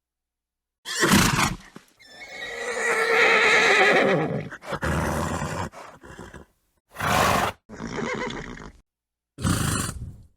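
Horse calling: a short noisy blow, then a long wavering whinny about two seconds in, followed by several shorter snorts with brief silences between them.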